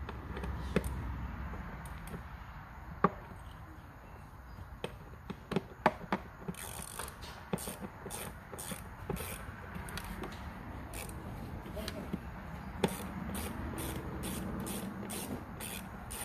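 Ratcheting Torx T25 driver clicking as the air filter housing lid's screws are turned in. Scattered sharp clicks and knocks come first, then from about halfway a steady run of clicks, a few a second.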